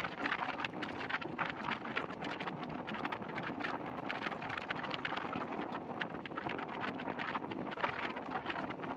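Moving passenger train heard from an open coach door: a steady rumble and rattle of the wheels on the rails with many short irregular clicks, and wind buffeting the microphone.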